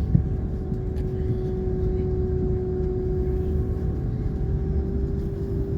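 Steady drone inside a parked airliner's cabin: a low rumble with a constant hum running under it.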